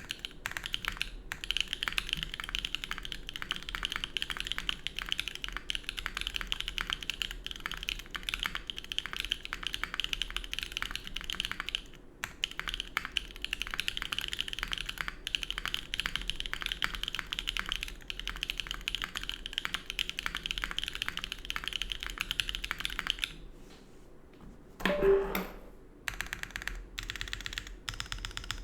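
Fast, continuous typing on a Mode Envoy mechanical keyboard with stock JWK Tao Yao (Peach Bloom) switches, GMK doubleshot keycaps and an FR4 plate with no foam, giving a dense run of crisp keystroke clicks. The typing stops briefly a couple of times, and near the end, after a short pause, comes one brief louder knock with a short ringing tone before the typing starts again.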